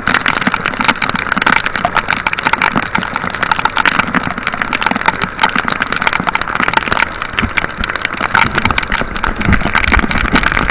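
Heavy rain beating down on the boat and the camera in a dense, steady crackle of drops, over the drone of the small outrigger boat's engine and wind rumbling on the microphone.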